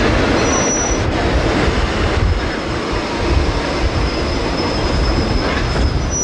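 Diesel-hauled passenger train rolling past with a steady rumble, its steel wheels squealing on the rails in a thin high tone that comes in briefly near the start and then holds from about two seconds in.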